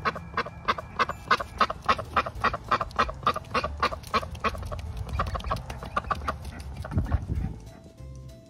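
White domestic duck quacking in a rapid, steady series of about four to five quacks a second, which stops after about six and a half seconds. A brief low rumble follows.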